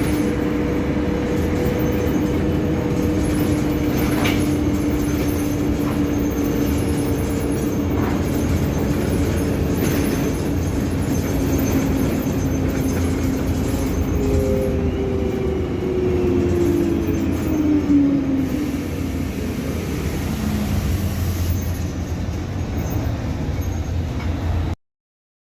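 Mercedes-Benz O-500MA BlueTec 5 articulated bus running under way: its diesel engine and drivetrain drone with a steady whine. About two-thirds of the way through, the whine falls in pitch as the bus slows, and the sound cuts off abruptly near the end.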